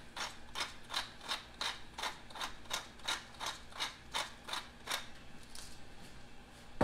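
Hand-twisted pepper mill grinding black peppercorns: a steady run of short, gritty crunches about three a second, which stops about five seconds in. A single sharp knock comes right at the end.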